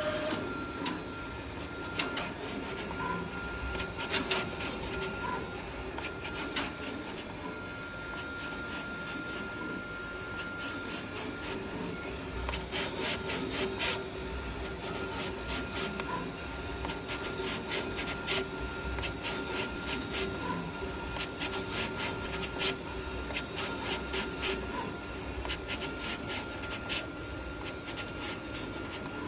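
SAGA ASC1907 sticker die-cutting plotter at work, its blade carriage running over the sticker sheet as it cuts. The sound is a steady mechanical hum with many irregular clicks and ticks throughout.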